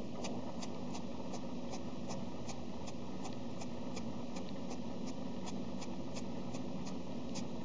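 Small cube of kitchen sponge dabbing acrylic paint onto a foam petal: faint, light taps about three a second over a steady background hiss.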